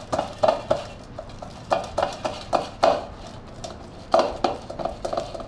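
The bottom of a small steel bowl pressed and rubbed around a stainless-steel mesh sieve, forcing cooked chana dal and jaggery filling (puran) through the mesh: a series of irregular scraping, squelching strokes.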